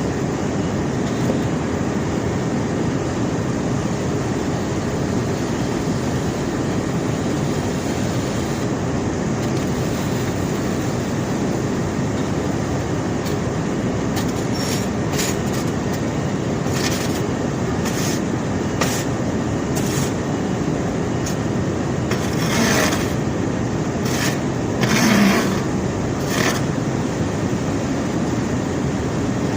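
Conveyor belt carrying rock, running with a steady low rumble. From about halfway there are scattered sharp knocks, and a few louder clatters come near the end.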